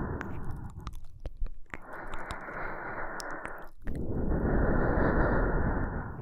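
Slow, close-miked breathing into the microphone. One breath fades out about a second in, and two more follow, each lasting about two seconds. Small mouth clicks fall in the gaps between breaths.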